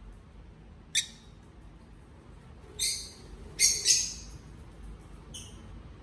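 Rosy-faced lovebird giving short, high-pitched chirps: one about a second in, a louder cluster of two or three a little past the middle, and a short one near the end.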